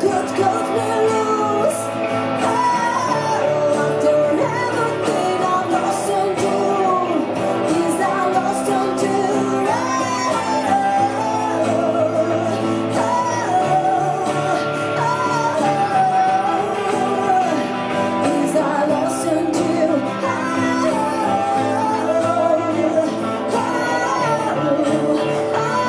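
A live acoustic band playing: a woman singing a melody, with a strummed acoustic guitar, a plucked upright double bass and a second guitar.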